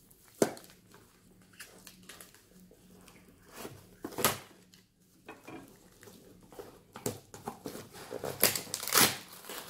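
Kitchen knife cutting through packing tape on a small cardboard box, with scattered sharp clicks and knocks of the knife and box against glass. Near the end the cardboard flaps are pulled open, with a run of quick knocks and rustles.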